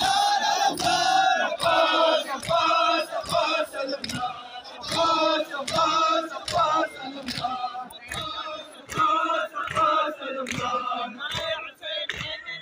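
A crowd of men chanting a mourning lament (noha) in unison, with regular sharp slaps of hands beating on chests (matam) keeping time under the voices.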